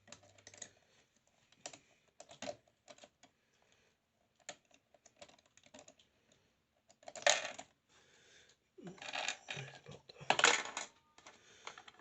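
Small hard clicks and clatters of a CPU cooler and its thumb screws being fitted onto a motherboard, with louder knocks about seven and ten seconds in as the cooler is pressed into place.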